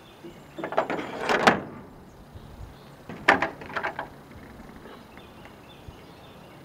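Metal rain gutter and its hanger bracket knocking and scraping as they are handled against a metal frame, in two short bursts: one about a second in, another about three seconds in.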